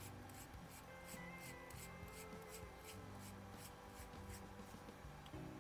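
Scope objective bell being screwed by hand onto the threads of the scope body, a faint rhythmic scratching of about three or four strokes a second that stops about four and a half seconds in. Quiet background music with held tones plays underneath.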